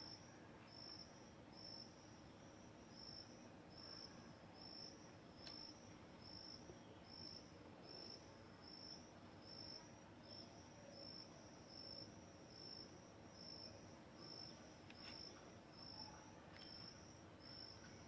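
Faint cricket chirping steadily, about two short high-pitched chirps a second, with a few faint clicks.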